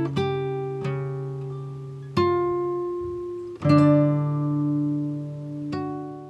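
Background music: a plucked acoustic guitar playing slow notes, each struck about every second or so and left to ring and fade.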